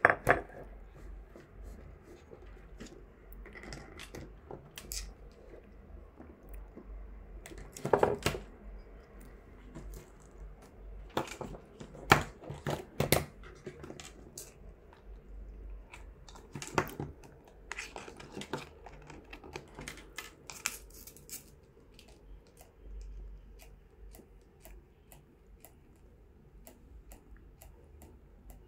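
Irregular plastic clicks and knocks as a blue monk parakeet bites, pushes and tips a small red plastic folding phone stand on a wooden tabletop, with a few louder clatters of the stand against the wood.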